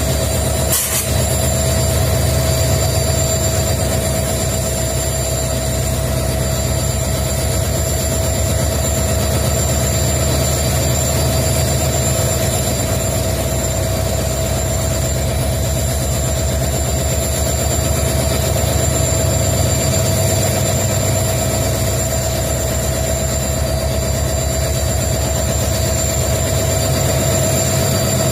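Twin WDG4 (EMD GT46MAC) diesel-electric locomotives, with EMD 16-710 two-stroke V16 engines, idling after start-up: a steady low engine rumble with a continuous hum and a high-pitched whine over it. A brief click about a second in.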